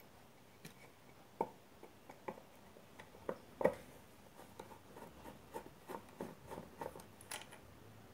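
Faint, irregular clicks, taps and light scrapes of a soldering iron tip and small tools against a car audio amplifier's circuit board. Two louder taps come about one and a half and three and a half seconds in.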